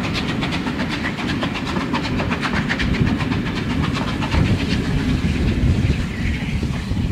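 Railway passenger coaches rolling past, their wheels clicking rapidly and rhythmically over the rail joints. The clicking thins out in the second half as the last coach goes by, giving way to a low rumble.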